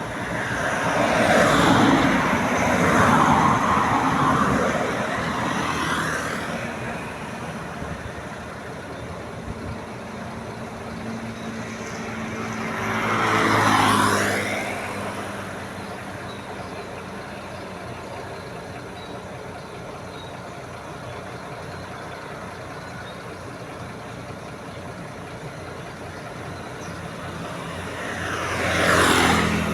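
Road traffic: vehicles driving past one after another, each rising and falling as it passes, with a steady engine hum between. The loudest passes come in the first few seconds, about halfway through, and near the end.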